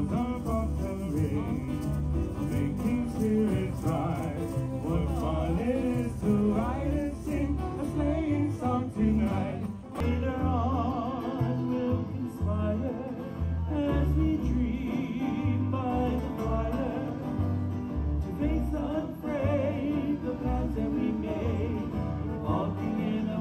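Live Hawaiian music for a hula performance: a singer over a plucked string accompaniment with a steady low beat. About ten seconds in the music changes abruptly to another song.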